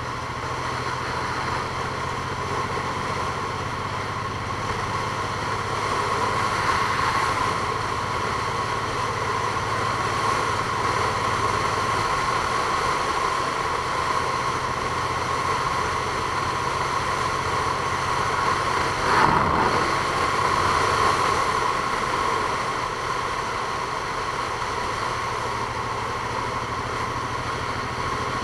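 A vehicle's engine running steadily, with a constant whine over the hum and a short louder whoosh about two-thirds of the way in.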